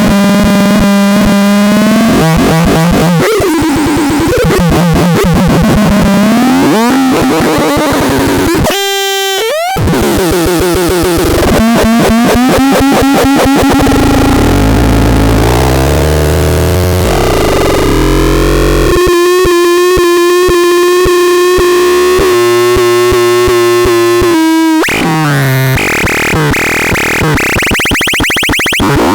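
Loud, harsh electronic synthesizer sounds: buzzy pitched tones that jump and glide up and down, mixed with noise, with a brief break about nine seconds in and a long held tone in the second half.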